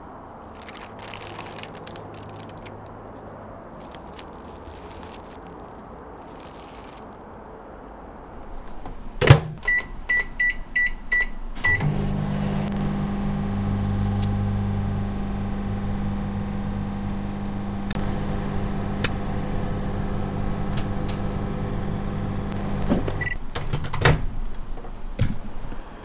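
Microwave oven: a sharp clunk as the door shuts, then a quick run of about six keypad beeps as the time is set. The oven then runs with a steady low hum for about eleven seconds, stops, and a few clicks follow near the end.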